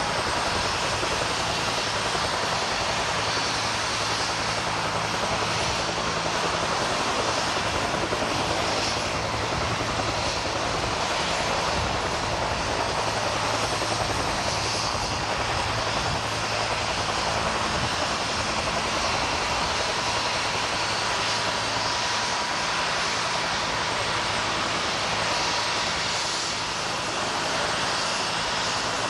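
Helicopter running steadily, a loud constant rush of engine and rotor noise with a low hum underneath.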